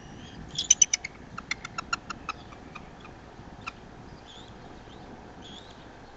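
Bald eagles giving short, high chirping calls in two quick runs, then one more chirp a little later. Faint, wavering higher bird notes sound behind them.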